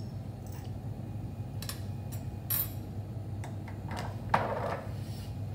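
Light clicks and clinks of lab glassware and a bottle cap being handled, a few scattered taps with the loudest a sharp knock about four seconds in, over a steady low room hum.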